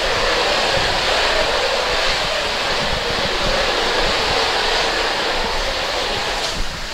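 Magic Mobility Frontier V6 mid-wheel-drive power wheelchair spinning in place: its drive motors and large low-pressure off-road tires make a steady running noise on the floor.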